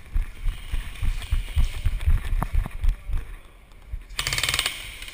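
Airsoft electric rifle firing one rapid full-auto burst of evenly spaced clicks, about four seconds in, lasting under a second. Before it, irregular low thumps and knocks.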